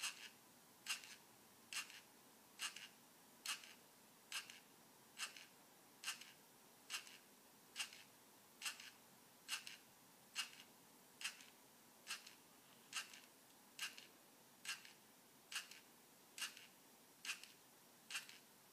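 Lego Mindstorms countdown machine stepping its geared pointer arm, one faint mechanical click a little under a second apart, steady and even. The clicks come slightly faster than real seconds: the machine counts fast.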